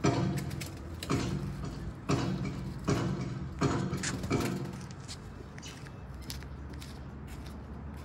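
Background music with a regular beat of pitched strikes, about one every three-quarters of a second, that stops about four and a half seconds in. After that only a steady low hum with a few faint ticks remains.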